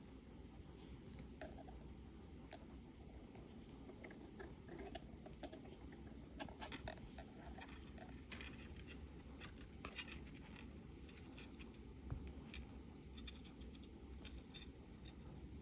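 Faint scratching and light clicking of thin silver-plated copper wire being wrapped by hand around a wire loop, the stiff wire ends ticking against each other, busiest in the middle.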